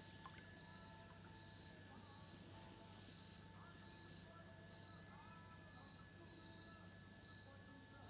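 Near silence: a faint low steady hum, with faint short high-pitched chirps repeating about twice a second.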